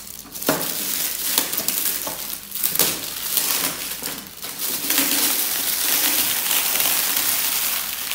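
Clear plastic packaging wrap crinkling and crackling as it is handled and pulled off, becoming a steadier, denser crackle from about halfway through.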